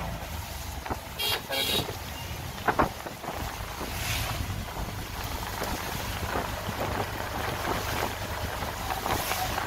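Steady low engine rumble with wind noise on the microphone, from riding in a moving vehicle. There are a few brief clatters in the first few seconds.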